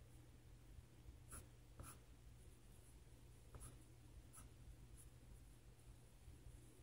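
Faint scratching of a colored pencil sketching on sketchbook paper: a handful of short, separate strokes, two about a second and a half in and a few more between three and a half and five seconds.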